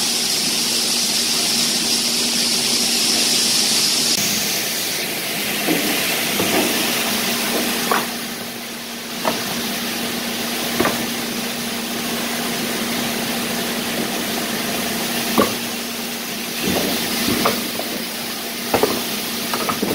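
Scattered knocks and rustles of packages being handled and shifted, over a steady hiss and a faint low hum.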